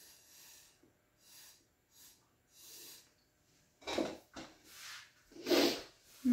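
A person blowing short puffs of breath at wet acrylic pouring paint to spread it across the canvas: about six airy puffs, faint at first, the last two, about four and five and a half seconds in, much louder.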